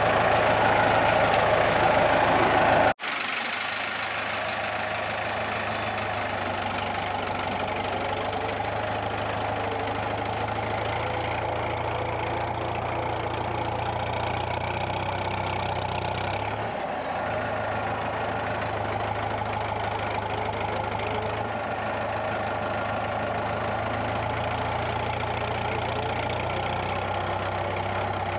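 Tractor engine running steadily with a low, even hum. It is louder for the first three seconds, then drops abruptly to a steadier, quieter level.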